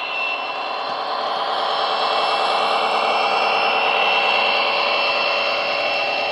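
Bachmann Class 57 model locomotive's DCC sound decoder playing a Coastal DCC Class 57 diesel engine sound through its small onboard speakers. It runs steadily with a high whine on top and grows louder over the first few seconds as the model passes close by.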